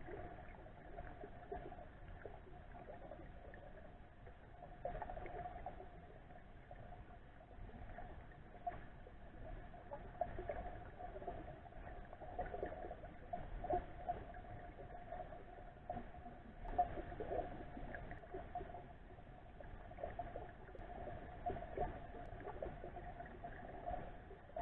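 Muffled underwater river ambience heard by a submerged camera: steady rushing water noise with gurgles and irregular swells, the loudest about two-thirds of the way through.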